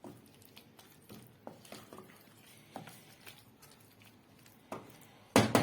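Scattered light taps and knocks of cookware and utensils, then a sudden loud clatter near the end.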